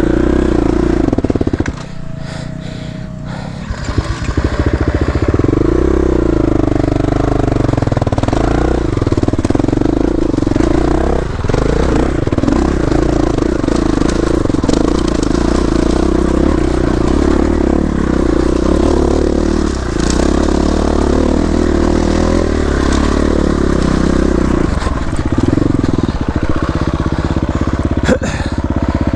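Enduro dirt bike engine running steadily under throttle on a trail. It eases off and gets quieter for a couple of seconds near the start, then carries on at a fairly even pitch.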